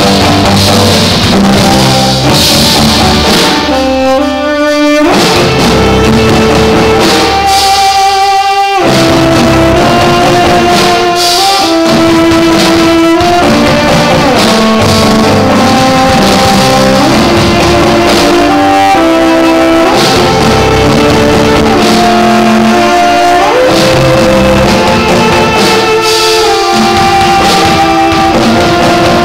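Three cellos played live in a heavy rock style, bowing long held notes over drums, very loud. The low end drops out briefly twice, about four and eight seconds in.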